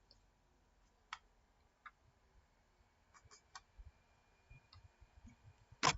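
A few light, scattered clicks and taps, with a sharper, louder click near the end, in a quiet small room.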